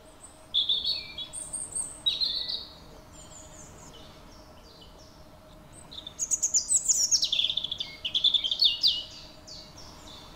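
Songbirds singing: a few short chirping phrases in the first couple of seconds, then a longer run of rapid chirps from about six to nine seconds in.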